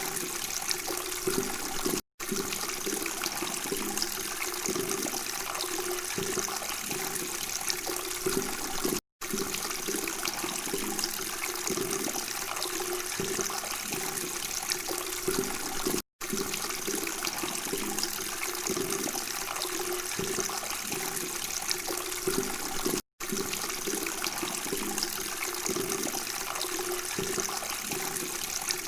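Steady babbling of flowing water, gurgling continuously, with a brief cut to silence about every seven seconds, four times in all.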